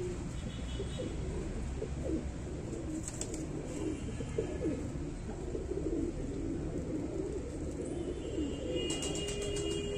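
A flock of Satin fancy pigeons cooing, with many low coos overlapping one another throughout.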